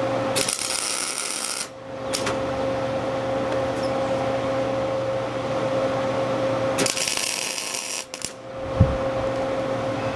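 Two short bursts of a power tool working metal, each about a second long, one near the start and one about seven seconds in, over a steady machine hum.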